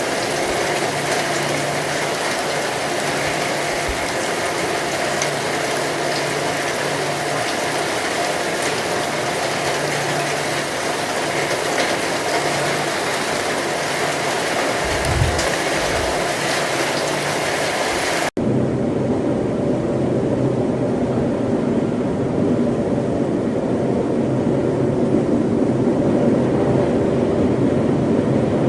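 Steady heavy rain falling, with a brief low rumble a little past the middle. About two-thirds of the way through it cuts abruptly to a deeper, duller rushing of rain.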